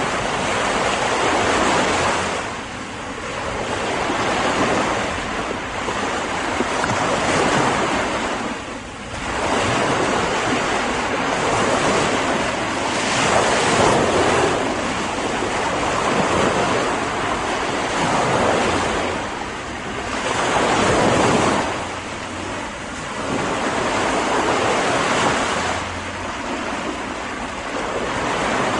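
Sea waves breaking and washing in, a continuous surf that swells and eases every few seconds.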